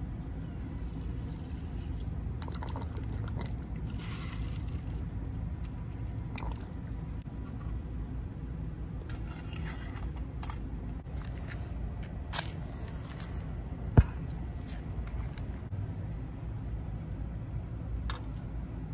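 Alcohol fuel squeezed from a plastic squeeze bottle and trickling into a small brass alcohol stove, followed by scraping and handling as the stove is slid under a metal pot stand. A single sharp metallic clack past the middle stands out as the loudest sound, over a steady low background rumble.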